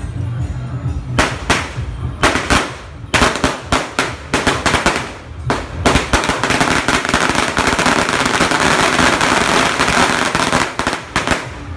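Firecrackers going off: a few separate sharp bangs from about a second in, then a long string firing in a dense, rapid crackle from about six seconds until just before the end.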